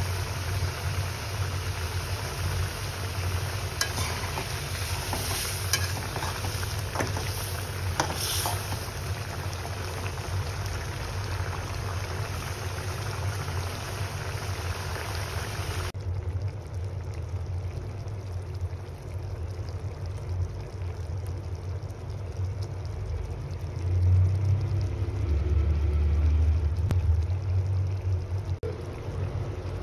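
Prawn curry bubbling and sizzling in a metal karai, with a few sharp clicks of a spatula against the pan about four to eight seconds in. About halfway through the sizzle cuts off abruptly, leaving quieter simmering over a steady low hum that swells briefly near the end.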